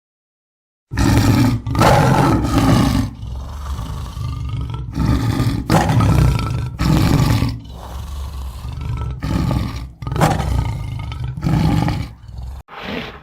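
A big cat giving a long series of loud roars, one after another about every second. The roars begin about a second in, after a short silence.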